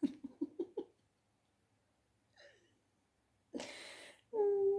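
Short bursts of giggling, then a sharp breathy exhale about three and a half seconds in, and a voice humming one held note near the end.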